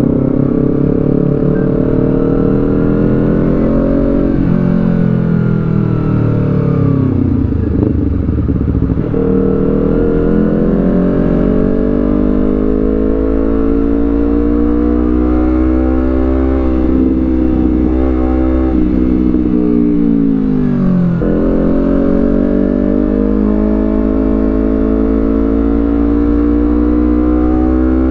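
Honda CBR250RR parallel-twin engine through a Villain Z2 carbon aftermarket exhaust, heard while riding: the exhaust note climbs steadily in pitch as the bike accelerates, drops sharply a few times (about four seconds in and about three-quarters of the way through) and sinks more slowly in between, then climbs again.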